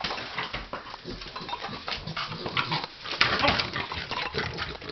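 A small dachshund going at a ball, making a rapid run of short, irregular dog noises.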